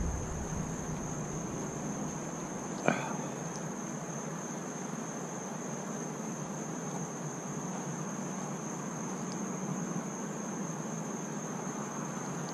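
Insects shrilling in one steady high-pitched tone throughout, with a single sharp click about three seconds in.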